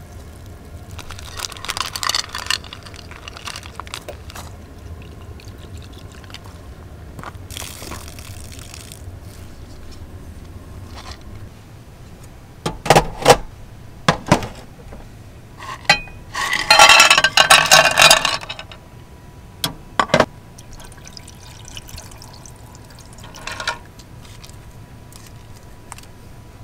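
Clams being handled in a frying pan: a few short clatters of shells on metal, then a longer, loud pouring burst about two-thirds through, with quieter spells between.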